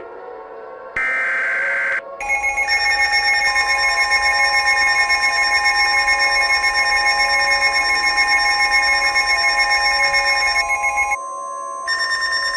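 Mock Emergency Alert System tones. A one-second buzzing data burst of the alert header comes about a second in. It is followed by a long, loud alert attention tone made of several steady pitches that pulse a few times a second, which cuts off about eleven seconds in. After a short break, another tone starts near the end.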